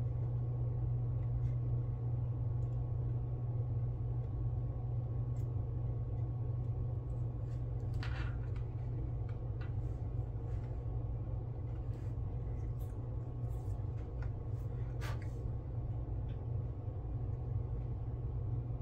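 A steady low hum, with faint short scrapes about eight and fifteen seconds in from hands rubbing metal foil onto a plastic model car chassis.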